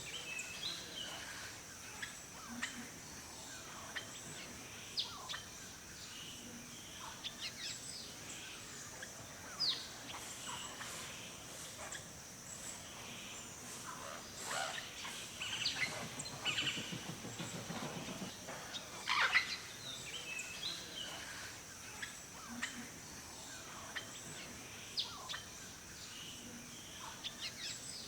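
Wild birds chirping and calling, short calls scattered throughout over a steady high hiss. About halfway through there is a low, rapid pulsing sound lasting a couple of seconds.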